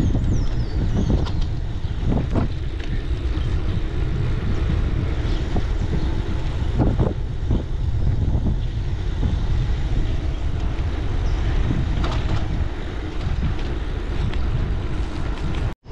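Wind buffeting an on-board action camera's microphone, with low tyre-and-road rumble from a gravel bike on the move and scattered knocks from the bike over rough ground. The sound cuts off abruptly near the end.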